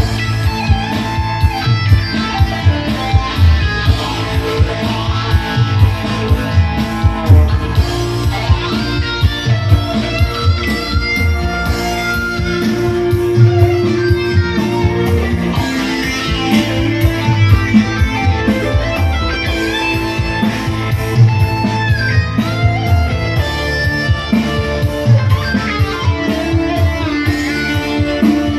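Live band music through a PA system: an instrumental break with a lead melody over a steady beat, with no singing.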